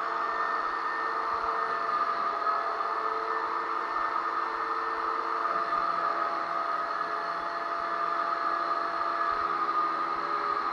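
Electric drywall sander running steadily, a constant motor whir with a hiss of sanding.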